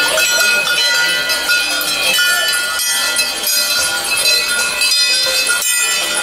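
Many hand-held bells ringing together without a break, a dense jangle of overlapping tones at many different pitches.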